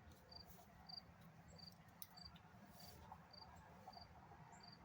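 A cricket chirping faintly: short high chirps repeating evenly, a little under twice a second, over low room noise.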